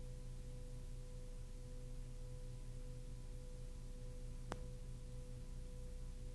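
Faint steady electrical hum with a light background hiss, and a single sharp click about four and a half seconds in.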